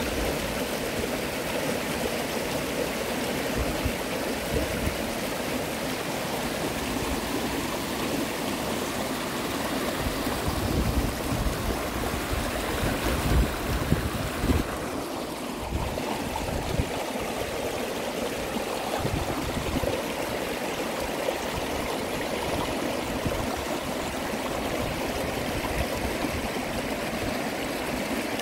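Shallow creek rushing and gurgling steadily over rocks in a riffle, with a few low bumps near the middle.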